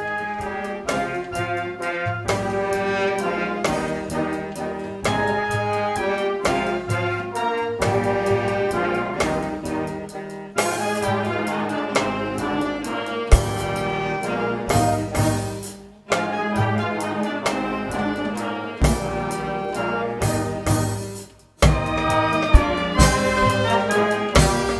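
Brass band music, breaking off briefly three times.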